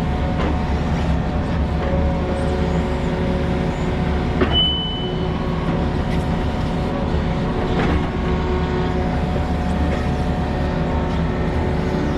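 A heavy-equipment engine running steadily, with a sharp click and a brief high squeal about four and a half seconds in.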